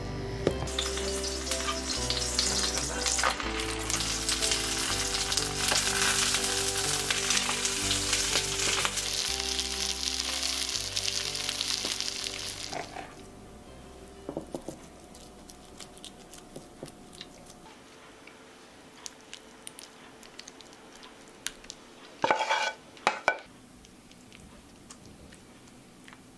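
Thick white sauce sizzling in a pan on the stove as a wooden spoon stirs it, with soft music underneath, for about the first half. Then it goes much quieter, with light spoon clicks and scrapes as filling is spooned into ceramic baking dishes, and a couple of louder scrapes near the end.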